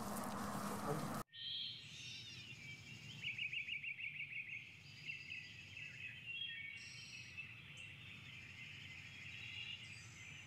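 Several birds singing and calling over faint background noise, with a fast trill about three seconds in; the first second is steady noise that cuts off suddenly.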